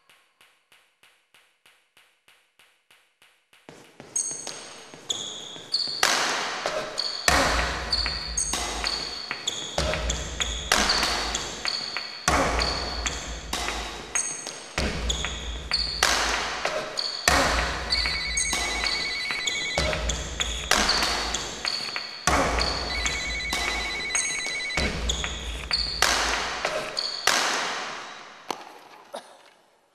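Percussive beat of sharp hits, short high pings and deep bass thumps in a steady rhythm. It is preceded by faint ticking, about three a second, and comes in loudly about four seconds in. It fades out near the end.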